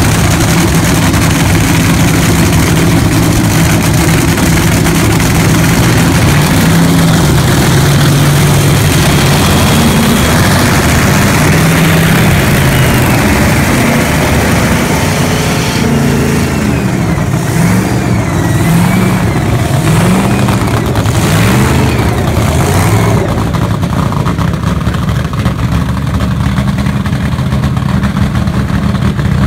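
Rebuilt DC Audio Level 1 10-inch subwoofer playing a loud bass track in free air, its bass notes stepping and gliding up and down.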